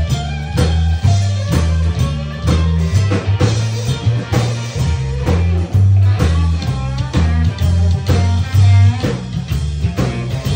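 Live band music: electric guitar over an upright double bass playing a stepping bass line, with a steady beat.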